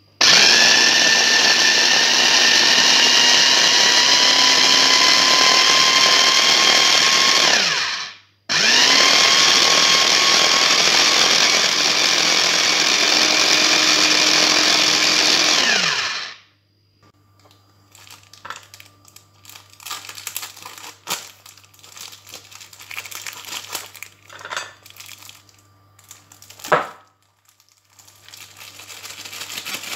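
Electric mini food chopper running on green chillies, in two runs of about eight seconds with a short pause between, the motor winding down in pitch as each run stops. Quieter scattered rustles and clicks follow.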